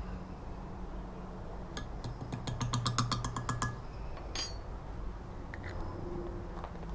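Small metal scoop clinking rapidly against a glass measuring cup, a quick run of light taps for about two seconds as gold glitter is knocked off into the plastisol, then one more clink.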